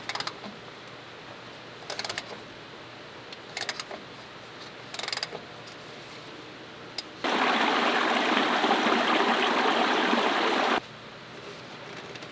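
Four short bursts of clicking, then an aerosol can of parts cleaner spraying in one steady hiss for about three and a half seconds that starts and stops sharply.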